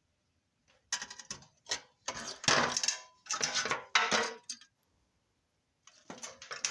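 Metal objects clinking and clattering in a run of short, sharp bursts, with a pause of about a second before starting again near the end.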